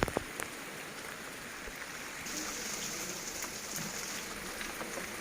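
Rain falling steadily, an even hiss of drops. A single sharp knock comes right at the start, and the high hiss of the rain grows brighter about two seconds in.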